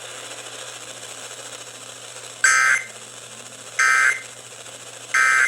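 Emergency Alert System end-of-message data bursts over a radio broadcast: three short, shrill digital squawks about a second and a half apart, the signal that closes the alert, over steady receiver hiss and hum.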